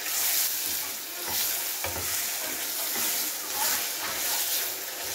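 Chopped tomatoes sizzling in a small stainless-steel saucepan on a gas stove while being stirred with a wooden spoon. The frying hiss swells about once a second with the strokes of the spoon.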